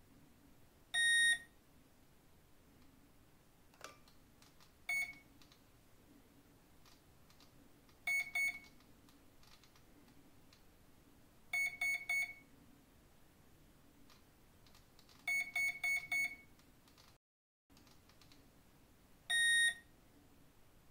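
Brushless ESC beeping through the boat motor as it steps through its timing settings in programming mode: a long beep about a second in, then one short beep, two short beeps, three short beeps and four short beeps in separate groups, then a long beep near the end, which marks the 15° timing value.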